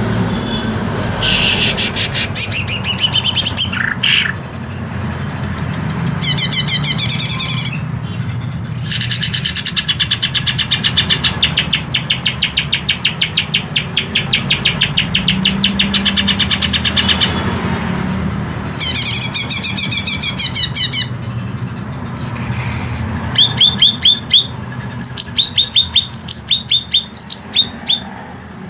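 Green leafbird (cucak ijo) singing a long, varied song: bursts of rapid trills and harsh, rattling phrases with short pauses between them, over a steady low hum.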